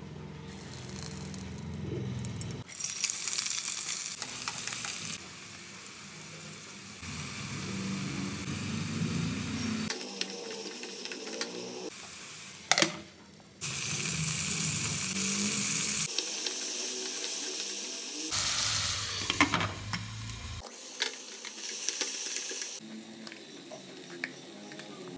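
Sliced onions, chillies, curry leaves and tomatoes sizzling in hot oil in a pot, with stirring. The sizzle changes level abruptly every couple of seconds, and there is one sharp knock about halfway through.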